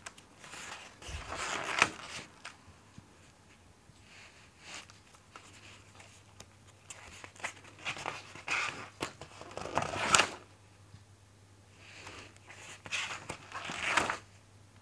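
Pages of a spiral-bound sketchbook being turned and handled: paper rustling in three bursts, with a few sharp crackles of paper.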